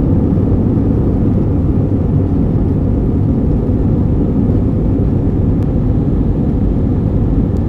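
Jet airliner's engines and airflow heard from inside the passenger cabin while climbing after takeoff: a steady, deep noise.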